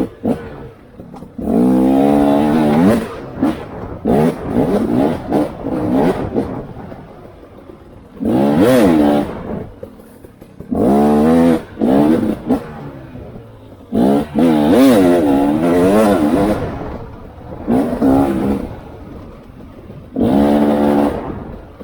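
Off-road vehicle engine revving in repeated bursts as the throttle is opened and closed along the trail, each rev rising and then falling in pitch. Quieter running stretches between revs, with some clatter.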